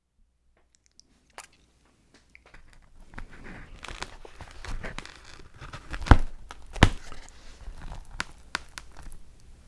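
Food packaging being handled and opened close to the microphone: crinkling, rustling and tearing of paper and cardboard, starting about two seconds in, with two sharp knocks a little past the middle.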